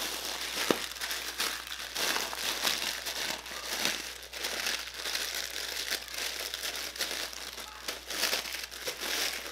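A sleeve of graham crackers being crushed by hand inside its wrapper: a steady run of irregular crinkles from the wrapper and crunches from the crackers breaking into crumbs.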